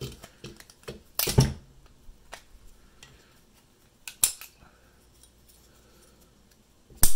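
Flat screwdriver prying at a car alternator's voltage regulator and brush holder: metal scraping with scattered sharp clicks and knocks. The loudest clicks come about a second in and near the end.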